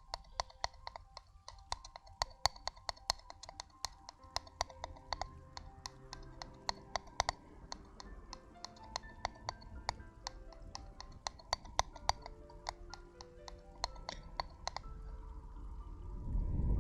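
Rapid crisp clicks and taps, several a second, of ASMR trigger sounds close to the microphone, over soft background music with held notes. A low rushing sound swells near the end.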